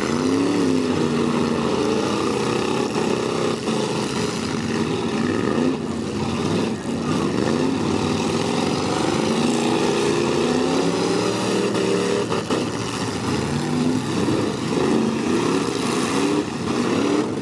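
Several stock V8 car engines revving up and down together, their pitch rising and falling, with a few sharp knocks from cars hitting each other.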